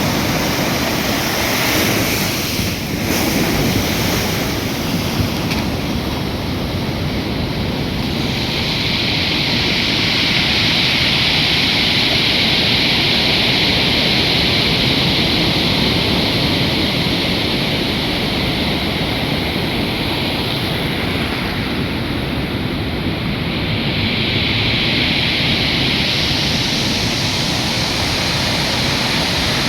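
Stormy sea surf breaking and washing on the shore: a continuous rush of water, its hiss swelling for several seconds about a third of the way in and again near the end.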